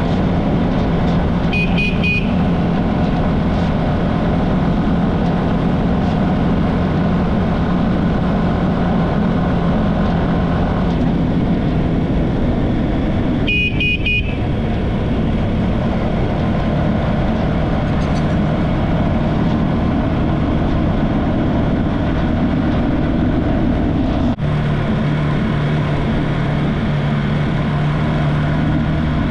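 Small motorcycle engine running steadily at road speed. A horn toots twice, briefly near the start and for about a second halfway through. The engine note steps lower about five seconds before the end.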